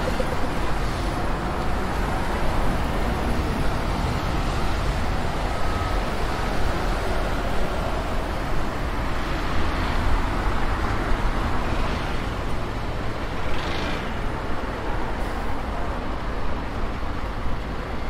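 Road traffic on wet streets: cars and buses passing, a steady low rumble with tyre hiss that swells as each vehicle goes by.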